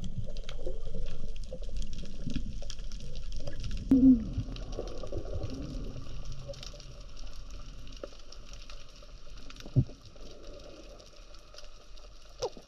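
Underwater sound heard through a camera housing mounted on a speargun as the diver moves along the bottom: a low muffled rumble of water with scattered faint clicking and crackling, and a few soft knocks, the clearest about four seconds in, near ten seconds and near the end.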